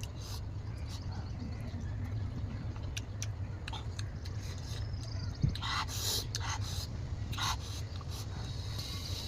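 Eating sounds of a mouthful of rice and mashed green mango: soft chewing clicks and smacks, a sharp click about five and a half seconds in, then a short run of louder wet smacks, over a steady low hum.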